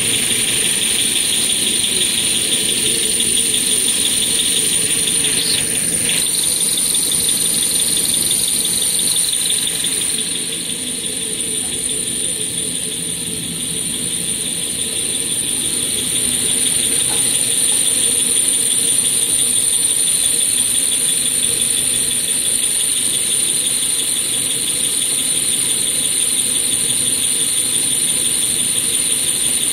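TQ-B-500 maxi roll paper making machine line running, with a steady high-pitched whine over a continuous rapid whirr.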